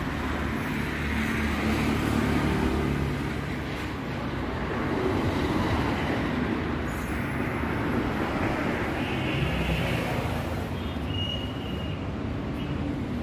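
Motor-vehicle traffic noise, with engines swelling and fading as vehicles pass. A short high beep sounds near the end.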